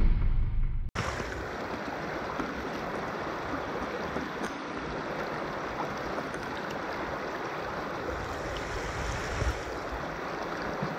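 Swollen, muddy floodwater rushing and churning over rocks in a river, a steady, even rush. It opens with the fading tail of a deep boom that cuts off about a second in.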